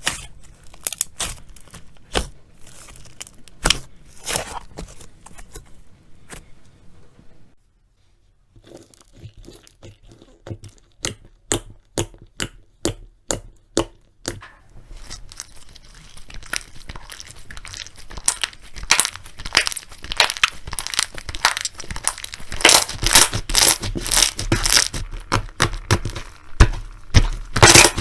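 Slime being pressed, poked and squished by hand, giving a run of sharp crackling pops and clicks. After a second of silence about eight seconds in, the pops come about two a second, then grow denser and louder toward the end.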